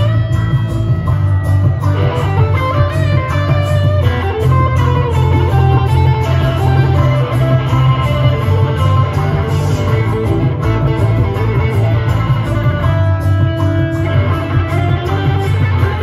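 Amplified acoustic-electric guitar played live in an instrumental passage, picked and strummed notes over a deep, steady low end.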